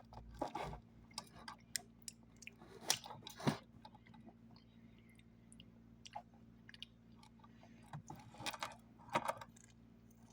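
A person chewing a soft, cookie-like snack close to the microphone, with intermittent small crunches and mouth clicks coming in clusters.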